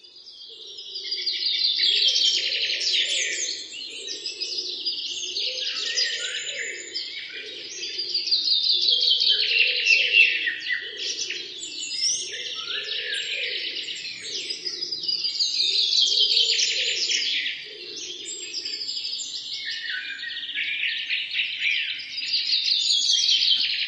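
Many birds chirping and twittering in a dense chorus that swells and fades about every seven seconds, with a soft low pulsing underneath.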